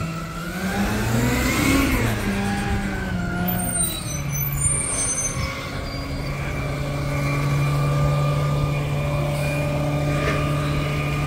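Garbage truck's diesel engine pulling forward: it revs up and down in the first couple of seconds, then settles to a steady run.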